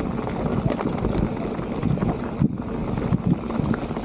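Mountain bike rolling over a rough trail: tyres on the ground and the bike rattling in a stream of short, irregular knocks.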